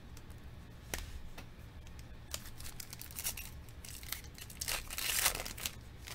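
A foil trading-card pack being torn open and crinkled by hand: a few small clicks first, then bursts of crackly tearing that are loudest about five seconds in.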